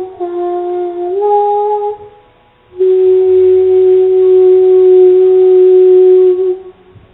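A young girl singing into a microphone: a short run of notes, a pause of about a second, then one long held note of about four seconds that stops shortly before the end.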